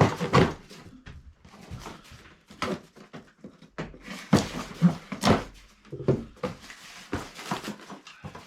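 Cardboard box and packaging being opened and handled: irregular rustles, scrapes and light knocks as parts are unpacked.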